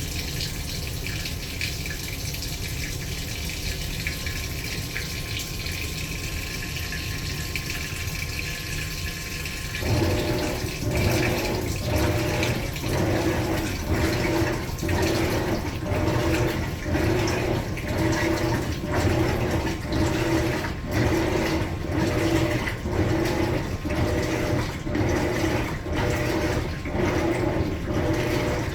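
Maytag Bravos top-load washer on its rinse: water pouring into the tub, then about ten seconds in the drive motor starts rocking the wash plate back and forth, a humming swish that repeats about once a second over the running water.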